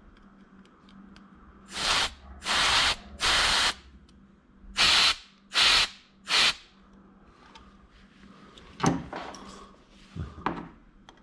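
Compressed-air blow gun hissing in six short bursts into the inlet fitting of an antique oil pressure gauge, to test whether the gauge needle moves under air pressure. Two shorter, sharper handling knocks follow near the end.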